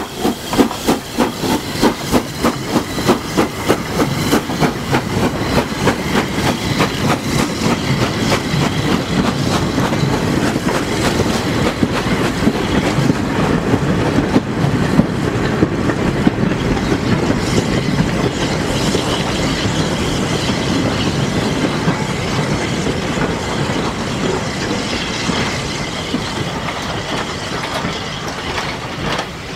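A steam locomotive passes close by hauling a goods train, its exhaust beating steadily, about two or three beats a second, for the first few seconds. Then the loose-coupled goods wagons roll past with a steady rumble and the clickety-clack of their wheels over the rail joints, easing near the end.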